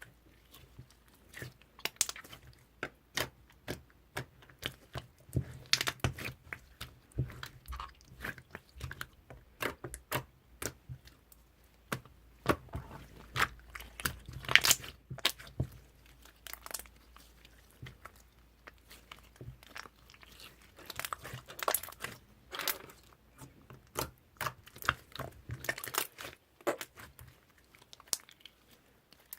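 Slime being squeezed, poked and pressed by hand, giving irregular crackling and popping clicks, some louder pops around the middle.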